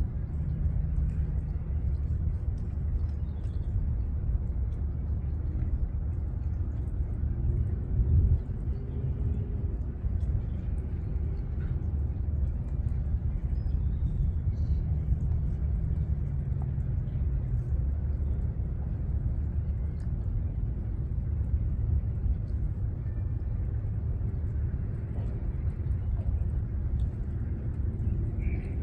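Steady low background rumble with a faint engine drone whose pitch slowly rises and falls.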